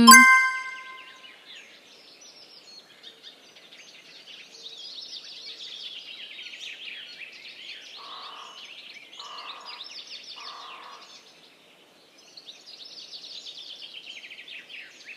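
Many birds chirping at once in a steady outdoor chorus, with three short, lower-pitched bursts about halfway through.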